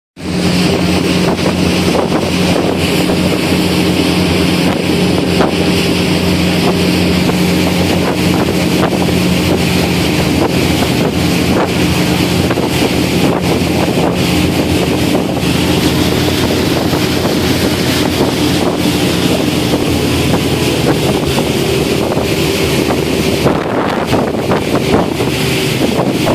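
Motorboat engine running steadily under way, a constant hum with wind buffeting the microphone and the rush of water over it.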